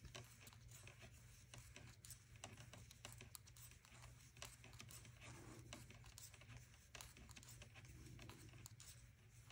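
Faint, irregular clicking of metal knitting needles with light scratching of yarn as stitches are knit, over quiet room tone.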